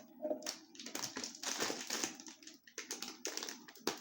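Close, irregular crunching and crackling of crunchy fried pork rinds being chewed.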